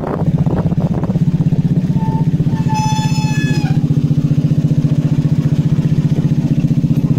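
Motorcycle engine running steadily at a low, even pulse, with a brief high-pitched tone about three seconds in.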